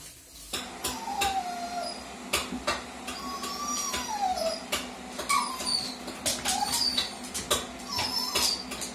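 Dalmatian whining in a series of short, falling whines, with many sharp clicks of its claws on the hard floor as it jumps up. The sound starts about half a second in.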